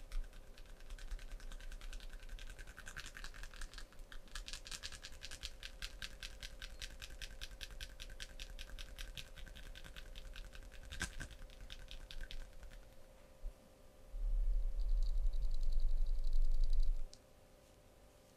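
Fingernails scratching in fast, even strokes, several a second, for a scratching massage. Near the end a louder low hum with a faint high tone runs for about three seconds.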